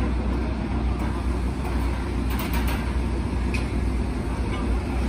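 Hydraulic press power unit running with a steady low hum. A few faint short high-pitched chirps come about halfway through.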